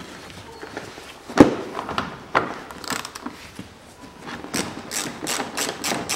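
Hand socket ratchet clicking as it undoes a bolt holding a plastic engine splash shield. There is a single sharp knock about a second and a half in, and the clicks come quicker, about three or four a second, in the second half.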